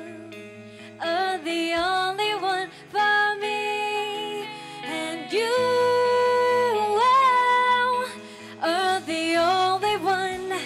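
A woman singing a slow song live with a band, holding long notes and sliding between pitches over soft, steady band accompaniment. The voice drops out briefly between phrases, just after the start and again about eight seconds in.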